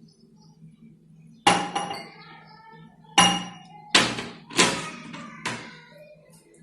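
Five sharp knocks with a short ringing clink after each, like hard objects striking glass or dishes, spaced irregularly about a second apart.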